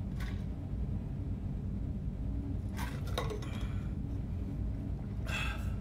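Three short clinks and knocks of a metal water bottle and its cap while drinking from it and closing it: one right at the start, one about three seconds in, and the loudest near the end. A steady low room hum runs underneath.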